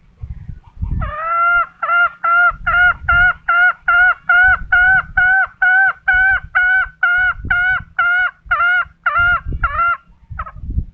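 Green junglefowl calling: a long series of short, identical honking notes, about three a second, starting about a second in and stopping near the end. Low thumps of handling noise sound underneath.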